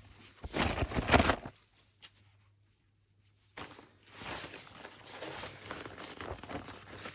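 Collapsible fabric camp bucket being handled: a loud crinkling rustle of the fabric in the first second or so, a pause of about two seconds, then steadier rustling and crinkling from about four seconds in.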